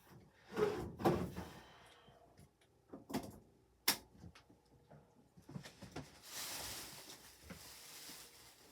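Clunks and clicks of a dishwasher being handled, with a door or latch knocking in the first second and a half and sharp clicks about three and four seconds in. A soft rushing hiss follows about six seconds in and lasts a couple of seconds.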